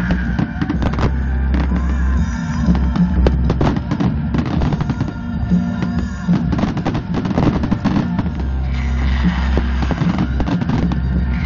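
Fireworks bursting and crackling in rapid, irregular succession, layered over loud music with steady low notes from the display's sound system.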